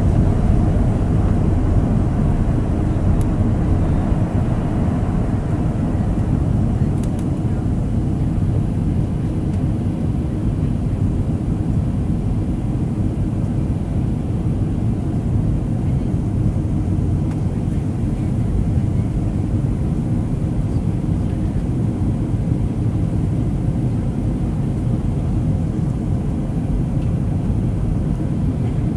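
Boeing 737's CFM56 turbofan engines running at takeoff power, heard from inside the cabin over the wing as the jet lifts off and climbs. It is a steady, deep rumble and rush, a little louder in the first few seconds.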